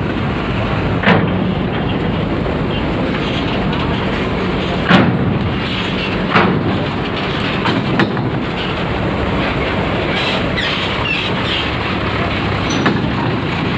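Tour bus driving slowly past close by, its engine running steadily, with several loud knocks and clanks spread through, about five in all. These are typical of wheels going over the joints of a steel ferry loading ramp.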